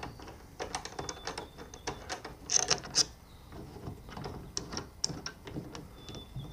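Irregular metal clicks and rattles of bolts, nuts and aluminium brackets being undone and lifted off a thruster mount, with a brief faint squeak twice. The loudest cluster of clicks comes a little before halfway.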